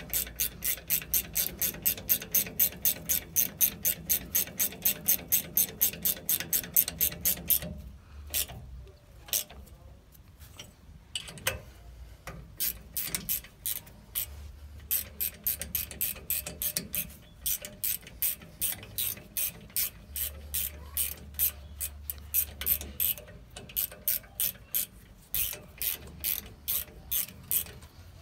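Hand ratchet wrench clicking at about five clicks a second as the brake caliper bolts are tightened. The clicking stops for a few seconds about eight seconds in, then comes back in several runs with short breaks.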